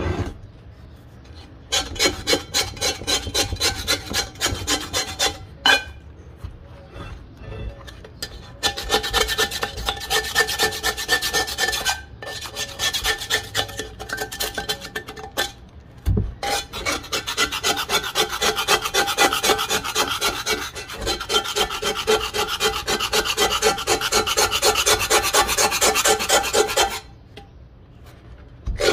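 Knife blade scraping rust and crust off an old cast-iron pot in quick back-and-forth strokes, stopping briefly a few times. A single knock sounds about halfway through.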